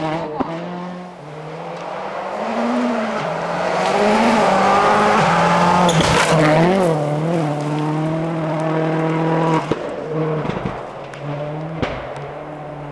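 Ford Focus RS WRC's 2.0-litre turbocharged four-cylinder rally engine running hard as the car comes down a gravel stage at speed. It gets louder as it nears, passes close about six seconds in with a sharp crack and a few quick wobbles in engine pitch, then fades into the distance.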